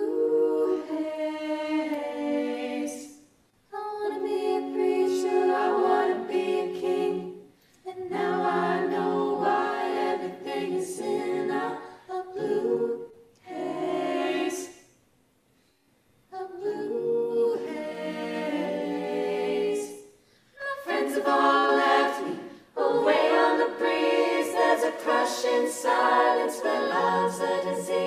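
Female a cappella vocal ensemble singing in close harmony, with no instruments. The singing comes in phrases broken by short pauses, with a near-silent gap of about two seconds around the middle.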